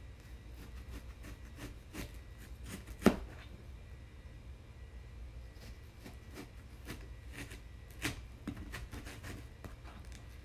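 Kitchen knife cutting a yellow onion: irregular taps and knocks of the blade, the loudest a sharp knock about three seconds in and another about eight seconds in.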